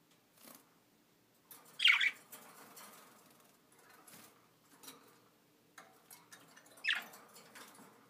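Budgerigars calling: two short, sharp chirps about five seconds apart, with faint chatter between.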